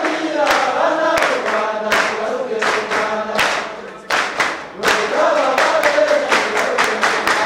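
A group of voices singing together in chorus, with rhythmic hand clapping. The singing drops away briefly about four seconds in, then resumes with faster clapping.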